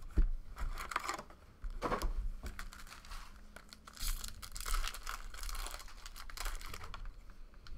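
Foil trading-card pack wrappers being torn open and crinkled by hand, in several crackly bouts of rustling.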